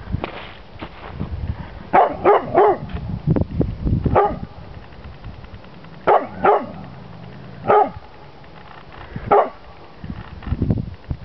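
Chocolate Labrador retriever alert-barking at an unfamiliar object, a red pizza box. About eight loud barks: a quick run of three, then single and paired barks a second or two apart.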